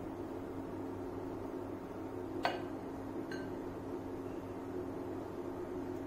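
Small steel muffin mold and glass mixing bowl clinking as thick batter is spooned from one into the other with a spatula: one sharp clink about two and a half seconds in and a lighter one about a second later, over a steady low hum.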